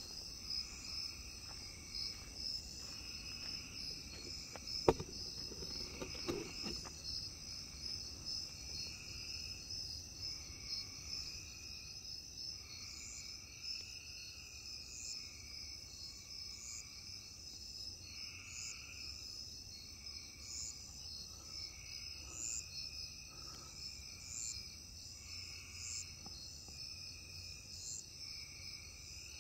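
Night chorus of crickets and other insects: a continuous high-pitched trill, with lower calls swelling and fading every second or two and short chirps repeating above. A sharp click about five seconds in, followed by brief rustling.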